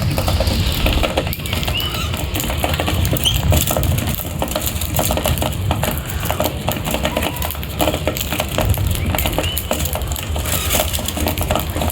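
Birds feeding: many quick clicks and taps of pecking and scrabbling, with a few short high chirps over a low rumble.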